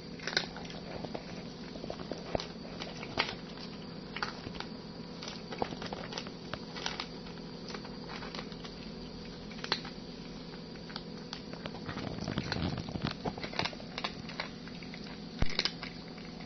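Domestic cat eating from a plastic bowl: irregular clicking bites and chewing, denser and louder for a moment about three quarters of the way through.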